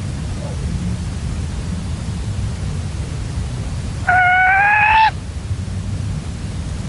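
Male red-legged partridge giving one drawn-out, slightly rising call lasting about a second, about four seconds in, over a steady background hiss. It is the call the owner calls his decoy's 'sigh' (suspiro).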